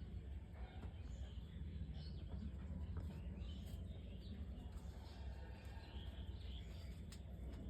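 Outdoor ambience: a steady low rumble with many short, scattered high chirps of small birds over it.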